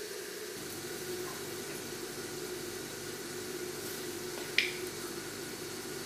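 Quiet room tone with a steady low hum and hiss. One brief, sharp high-pitched click or chirp sounds about four and a half seconds in.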